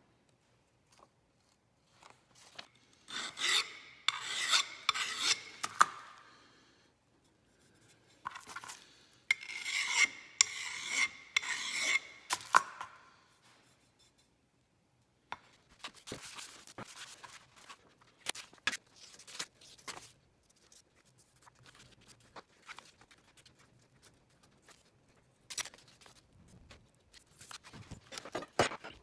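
Quick rasping, scraping strokes by hand, in two bursts of a few seconds each: the first about three seconds in, the second about eight seconds in. After that come scattered light knocks and handling clicks.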